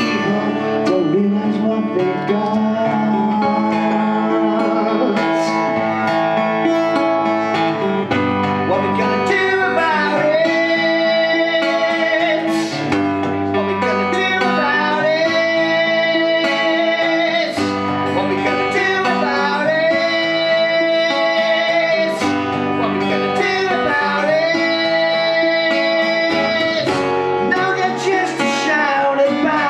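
Acoustic guitar strummed live, with a man singing over it in long held notes.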